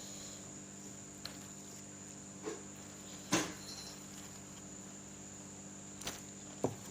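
Quiet eating sounds: a handful of short taps and clicks, the loudest about halfway through, over a steady high-pitched whine.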